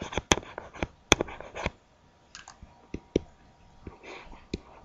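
Irregular sharp clicks and taps of a stylus on a tablet screen during handwriting, about a dozen, unevenly spaced and thickest in the first second and a half.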